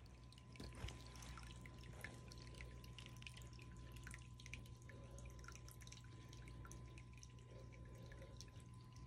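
Faint trickling and dripping of water draining into a muddy sump pit, many small irregular drips over a steady low hum.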